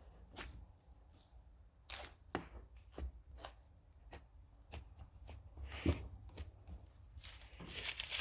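Scattered small clicks and taps of hands handling slime-making containers and materials, over a faint steady high whine. In the last second a rustling, rattling noise builds up.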